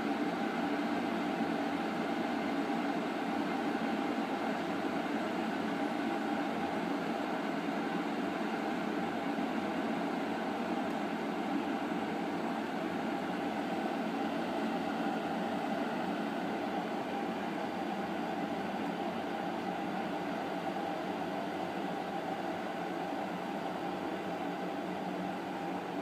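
Beko electric kettle at the boil: a steady rush of bubbling water, the kettle still switched on and heating.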